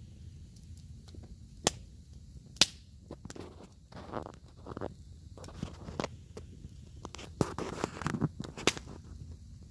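Wood campfire crackling, with scattered sharp pops, the two loudest about two and three seconds in.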